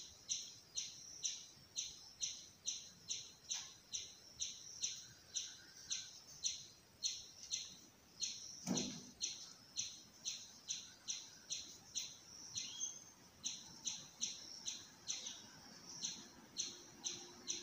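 A bird chirping over and over, short high chirps about two or three a second, with a single soft knock about nine seconds in.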